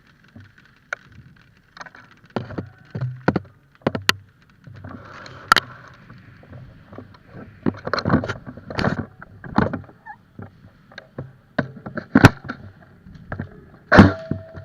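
A run of irregular sharp clicks and knocks with rustling between them, the loudest strokes about four, five and a half, twelve and fourteen seconds in.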